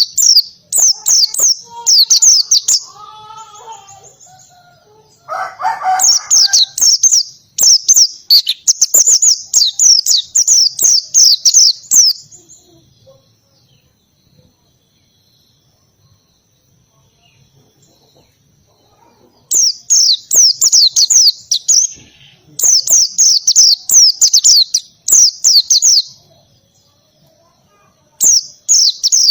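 A white-eye (pleci) singing very fast, high, canary-like trilled phrases in bursts of about a second, one after another. About five seconds in there is a lower, harsher call. In the middle the song stops for several seconds before starting again.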